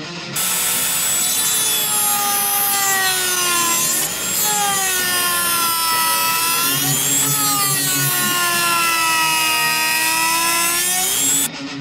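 Dremel rotary tool with a sanding drum grinding a semicircular clearance notch into a plastic dash console. The motor's whine sags and recovers in pitch as the drum bears into the plastic, with a brief let-up about four seconds in; it starts and cuts off abruptly.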